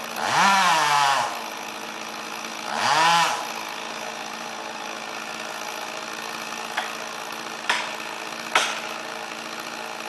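Chainsaw idling, revved up twice for about a second each time, its pitch rising and falling. Three sharp knocks follow in the second half.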